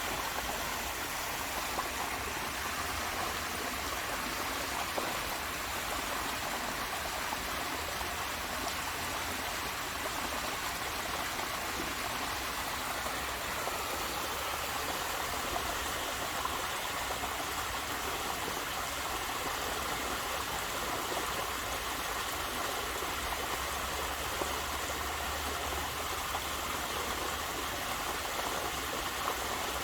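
Waterfall water splashing and running steadily in an even, unbroken rush.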